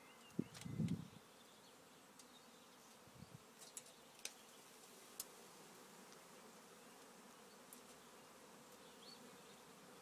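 Faint steady hum of a honeybee swarm, with a brief low thump under a second in and a few sharp clicks a few seconds later.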